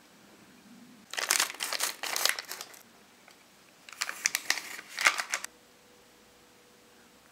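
Crinkling of a candy-kit powder sachet being handled, in two bursts of about a second and a half each, the second as the sachet is tipped out over a bowl.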